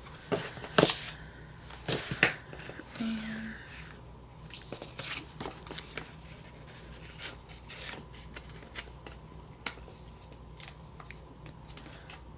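Paper stickers and sticker sheets being handled on a planner page: scattered short clicks, snips and paper rustles, loudest about one and two seconds in.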